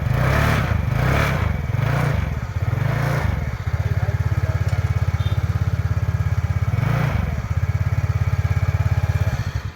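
TVS NTorq scooter's single-cylinder engine running. It is blipped a few times in the first three seconds and once more about seven seconds in, and otherwise idles evenly. The one-way clutch noise is gone now that its loose nut has been tightened.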